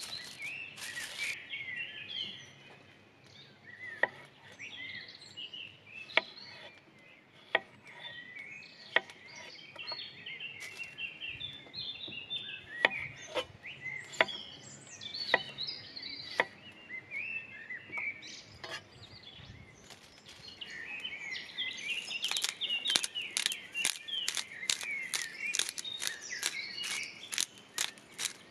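Chef's knife cutting small red potatoes on an end-grain wooden cutting board: single sharp knocks every second or two as the blade goes through and meets the board, then a quick run of many clicks over the last several seconds. Birds chirp throughout.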